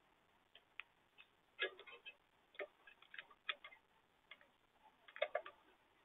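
A European goldfinch pecking at sunflower hearts on a plastic feeder tray: irregular sharp clicks and taps, some single and some in quick clusters of three or four.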